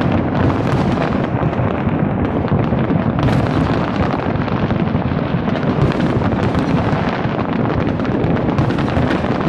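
A large fireworks display going off continuously: dense, overlapping bangs and crackles merge into a constant rumbling barrage with no break.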